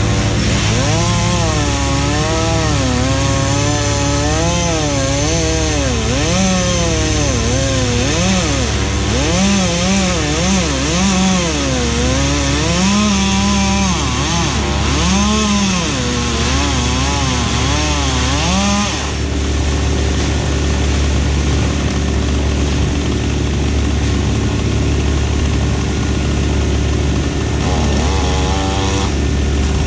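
Chainsaw cutting wood, its engine pitch wavering up and down as it bogs and recovers under load, over a steady low engine drone. The saw stops about two-thirds of the way through, leaving the drone, then revs briefly near the end.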